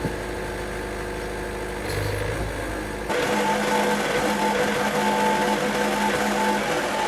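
Wood-Mizer LT70 sawmill's engine running steadily; about three seconds in, the sound turns abruptly louder and fuller, with a hiss spreading up into the high range.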